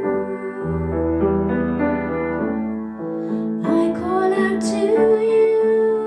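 Gentle, slow music led by piano or keyboard, with sustained notes and what may be a soft singing voice.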